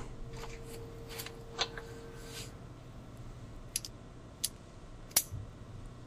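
A handful of light metallic clicks and taps at irregular intervals, the sharpest about five seconds in, as a socket extension and a small ratchet are handled and fitted together on the screws of a washing machine timer.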